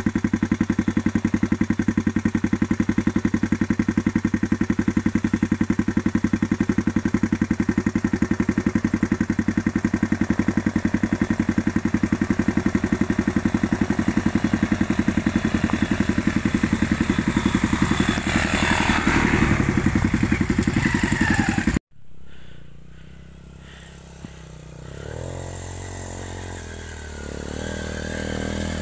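Pit bike engines running: a loud, steady pulsing engine note for most of the stretch that cuts off suddenly about 22 seconds in. After that a single pit bike is heard climbing, its revs rising and the engine growing louder near the end.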